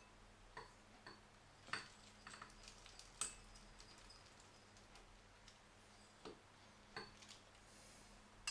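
Faint, sparse clicks and taps from a plastic syringe being worked in a drinking glass of water, about eight in all at irregular spacing, the sharpest two about two and three seconds in, over a faint steady hum.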